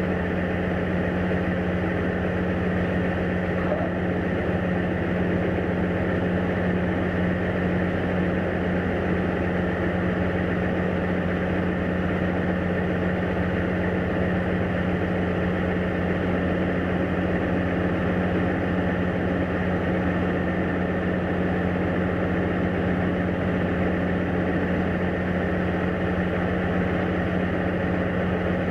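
Diesel engine of a semi truck hauling a cattle trailer, running steadily at low revs as the truck creeps forward: an even, unchanging low drone.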